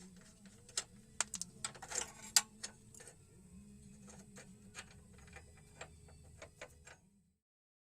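Irregular metallic clicks and knocks of hand tools working on the front suspension, thickest and loudest about two seconds in, over a faint low hum; the sound cuts off suddenly near the end.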